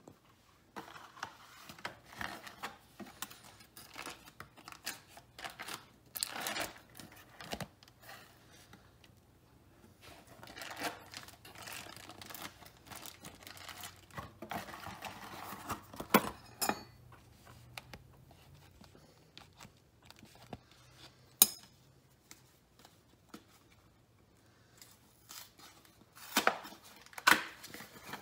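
Foil wrapper of a block of cream cheese being peeled open, crinkling and tearing, then cream cheese being spread on a bagel, with scattered sharp clicks and knocks, the loudest of them near the end.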